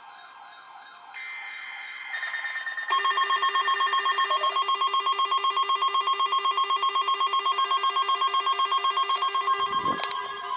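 Emergency Alert System alert tones. A steady tone begins about a second in and shifts at about two seconds. From about three seconds a loud, rapidly pulsing multi-tone alert sound runs until shortly before the end, where it cuts off with a brief thump.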